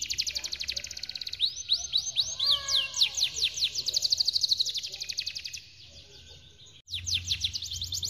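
Yellow domestic canary singing a long rolling song of rapid trills made of fast, high, downward-sweeping chirps, with a few lower gliding notes about two and a half seconds in. The song breaks off about six seconds in and starts again a second later.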